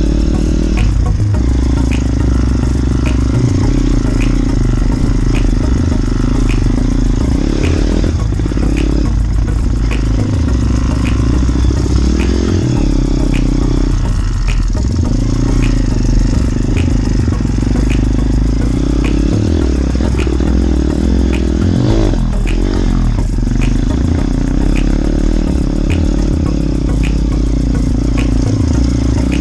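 Motorbike engine running steadily while riding, its pitch dropping and rising again a few times as the throttle changes, with a faint regular tick repeating through it.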